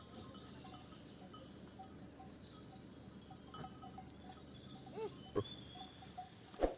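Bells on a grazing goat herd clinking irregularly, with one short goat bleat about five seconds in. Two sharp knocks come near the end.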